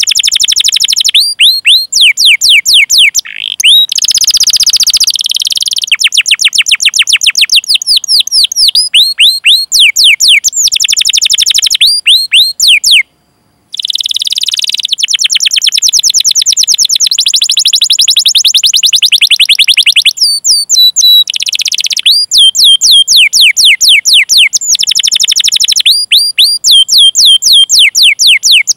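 Domestic canary singing a long, loud song of rapid repeated sweeping chirps ('cuit cuit') and fast rolls, strung in phrases. There is a brief silent break about 13 seconds in.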